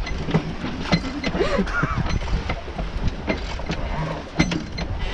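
A sailboat's winch ratcheting and creaking as a line is hauled in hard by hand: a quick run of pawl clicks with short squeaks over a low rumble of wind and water.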